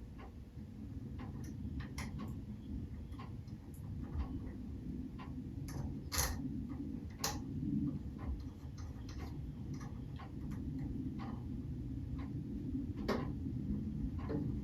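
Irregular light clicks and taps of small metal engine parts, such as spacers, being handled and fitted during assembly. A few sharper clicks come about six, seven and thirteen seconds in, over a low steady background hum.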